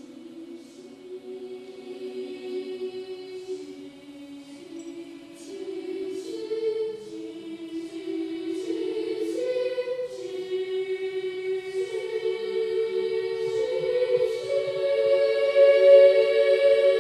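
Children's choir singing sustained notes in harmony, unaccompanied; the parts climb in pitch and the sound grows steadily louder toward the end.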